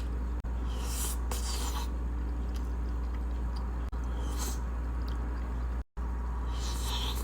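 Close-miked eating sounds of mac and cheese: three short, crackly bursts of mouth and utensil noise over a steady low hum, broken by brief dropouts where the recording is cut.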